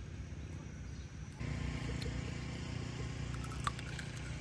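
Steady low outdoor rumble that turns louder and fuller about a third of the way in, with a few short, crisp clicks near the end.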